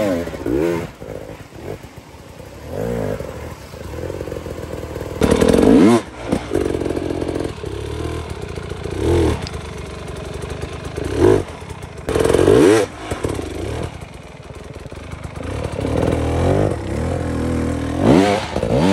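GasGas two-stroke enduro motorcycle revved hard in short bursts while picking its way up a steep, rooty trail. About half a dozen sharp revs rise steeply in pitch and fall back to a lower burble between them.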